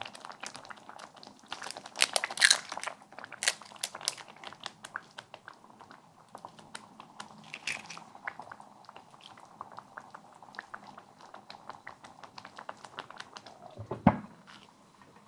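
Thick tomato sauce simmering in a pan, with a steady crackle of small bubbles popping and several louder pops and clicks between about two and four seconds in. Near the end, a glass lid is set down on the pan with a single clunk.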